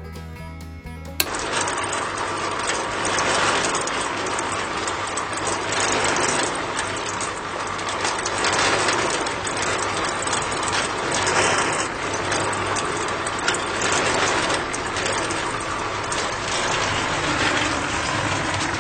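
A small electric motor running steadily with a dense rattle, starting about a second in and stopping abruptly at the end, with background music underneath.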